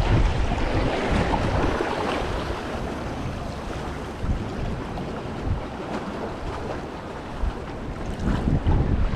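Wind buffeting the microphone over sea waves washing against a rock wall. The gusts are strongest at first, ease off after about two seconds, and pick up again near the end.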